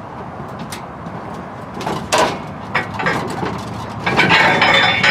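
Knocks, then a louder metallic clatter about four seconds in, from the jib winch assembly being set down and handled on the platform deck. A steady low hum runs underneath.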